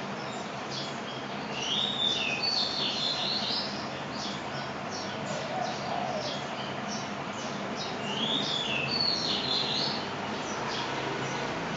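A bird singing the same quick phrase of whistled notes twice, about six seconds apart, among many short high chirps, over a steady hiss.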